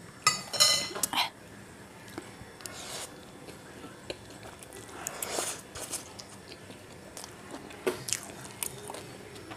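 Close-up eating sounds: chow mein noodles slurped into the mouth and chewed, with a spoon clinking against a glass soup bowl in the first second and small fork clicks on the plate.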